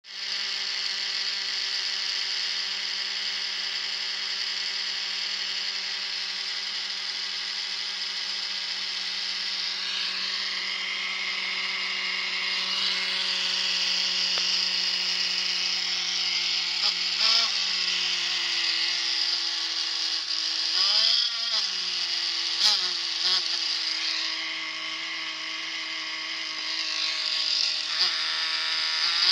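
Replacement GPU cooling fan for an MSI GS63/GS73 laptop spinning with a steady whine over a rush of air. In the second half its pitch repeatedly dips and wobbles, with a few sharp clicks, as the fan snags while turning and rubs as if sticking: the fan is defective.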